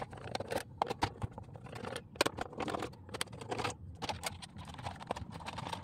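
Screwdriver working the screws of a plastic radio-cassette case, then the plastic back cover being handled and pulled apart: scattered light clicks and scrapes.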